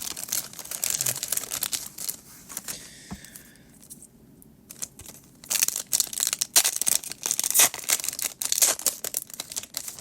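Foil Pokémon booster pack wrapper being torn open and crinkled: two stretches of dense crackling with a short lull about four seconds in.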